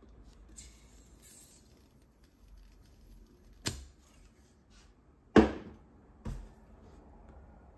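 Three sharp clicks from hands working at the base of a tabletop 16-cylinder swashplate model Stirling engine. The second, about a second and a half after the first, is much the loudest and rings briefly. A smaller click follows about a second later.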